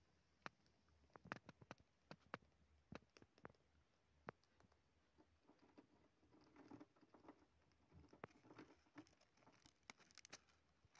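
House mouse moving about in a crack at the foot of a wall: faint, irregular sharp clicks at first, then soft scratching and rustling from about halfway through.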